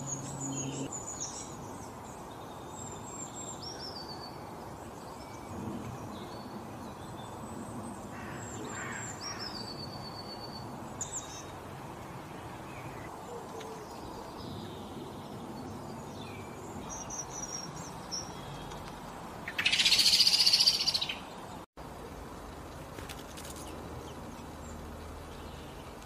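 Small songbirds chirping and twittering, with short high calls and trills scattered over a steady background hiss. About two-thirds of the way in, a much louder noisy burst lasts about a second and a half, followed by a brief dropout in the sound.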